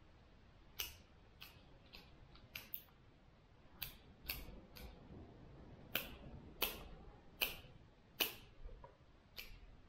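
Hand pruners snipping the lower branches off the base of bare-root spruce seedlings: about a dozen sharp clicks at irregular intervals, in quick runs with short pauses between.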